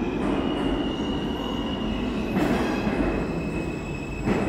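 Subway train wheels squealing on the rails over a steady deep rumble of the train on the track. Two sharp clanks come about two seconds apart, the second near the end.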